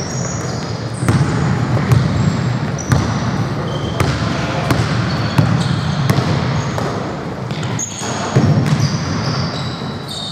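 Basketball game on a hardwood court: the ball bouncing and players' feet thudding at about one knock a second, with many short, high squeaks from sneakers on the wooden floor.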